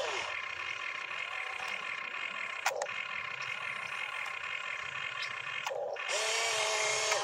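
Toy RC excavator's electric motors and gearboxes whining steadily as the boom and bucket move, with a few brief squeaks. About six seconds in, a steady two-note electronic tone joins.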